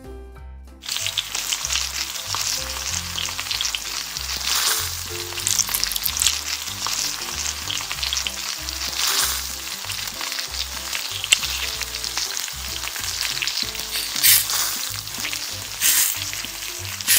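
Food frying in a miniature pan, a dense sizzle and crackle that starts about a second in and carries on with louder spurts, over background music.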